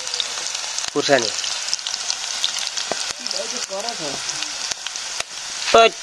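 Oil sizzling and crackling steadily in a steel wok as onions and dried red chillies fry in it, with fine popping ticks. Three short pitched calls sound over it, one falling about a second in, one wavering in the middle, and the loudest a brief one near the end.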